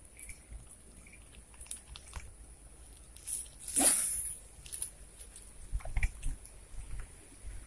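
A fishing rod being cast: one sharp swish about four seconds in as the rod whips forward and the line pays out, among light clicks and rustles of reel handling, over a steady high hiss.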